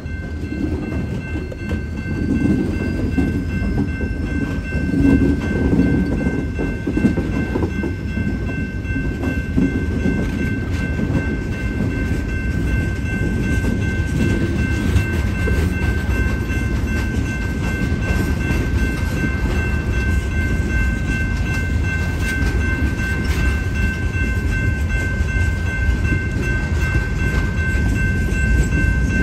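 Freight train passing a grade crossing: the last locomotive rumbles by in the first few seconds, then freight cars roll past with a steady rumble and wheels clicking over rail joints. A crossing bell rings steadily throughout.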